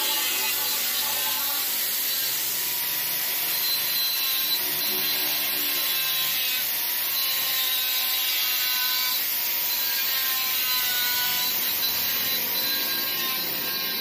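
Handheld angle grinder running steadily as its disc cuts and trims cured fibreglass along the edge of a mold, a continuous high-pitched grinding noise.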